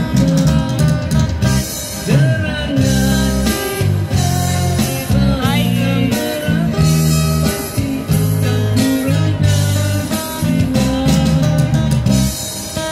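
Live band music: a male singer singing into a microphone over acoustic guitar, electric guitar and keyboard.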